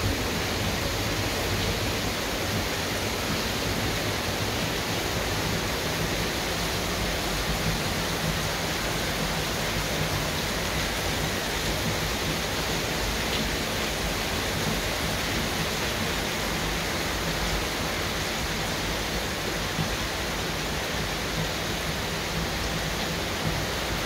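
Heavy rain pouring down, a steady even hiss with no let-up.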